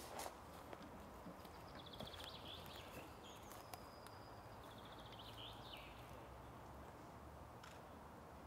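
Quiet forest ambience with a small songbird singing faintly: two short trilled phrases, each ending in a quick flourish, about two and a half seconds apart. A faint knock comes right at the start.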